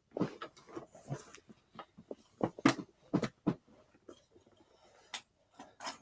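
A man's sniffles and unsteady breaths, a string of short irregular sounds that thin out after about three and a half seconds, as he holds back tears.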